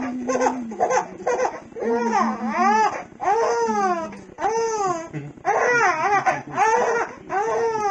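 Young infant crying in a run of short wails, each rising and falling in pitch, about one a second.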